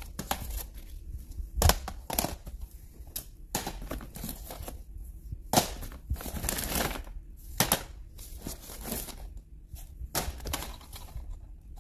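Plastic DVD and Blu-ray cases clacking against one another as they are lifted and shuffled through, with the plastic IKEA bag rustling and crinkling. The clacks come irregularly, a dozen or so sharp knocks.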